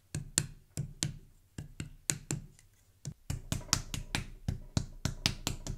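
A quick series of sharp slaps and taps on a wet clay portrait bust as it is worked by hand, coming faster in the second half.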